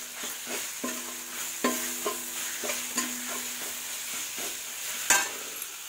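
Spices and masala sizzling as they fry in oil in a metal kadhai, while a metal spoon stirs, scrapes and knocks against the pan. Some knocks leave the pan ringing briefly, and there is one sharp knock near the end.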